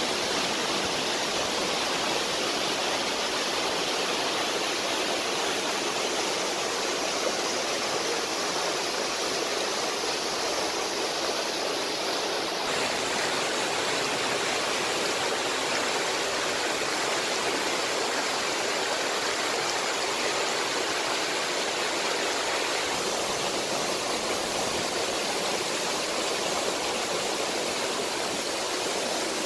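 Steady rushing noise of running water, with an abrupt shift in its tone about thirteen seconds in and a slighter one later.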